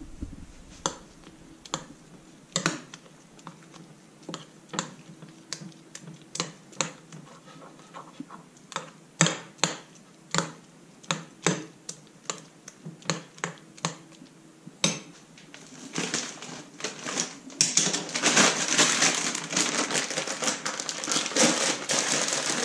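Metal spoon scraping and clinking against a ceramic plate while stirring rolled oats, flaxseed and water together, about two strokes a second. For the last several seconds it turns into denser, continuous scratching and rustling.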